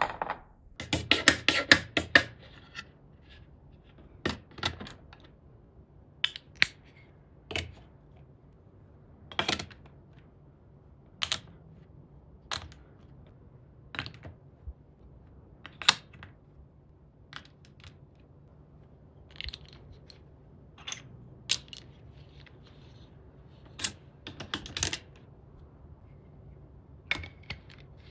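Plastic building bricks being handled and snapped together: a quick flurry of clicks at first, then single sharp clicks every second or two, with a pair of louder clacks near the end.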